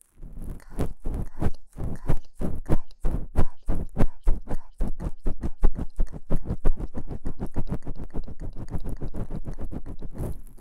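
Ear pick scraping inside the ear of a KU100 binaural dummy-head microphone, in rapid repeated strokes, several a second, coming closer together in the second half.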